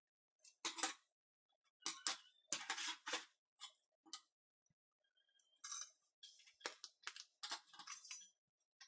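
Flat steel plates clinking and knocking against each other and the bench as they are handled and set in position: a series of short separate metal clinks.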